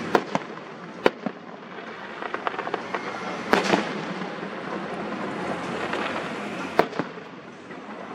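Fireworks going off: a string of sharp bangs spaced irregularly, the loudest cluster a little over three seconds in, with a patter of small crackles between them.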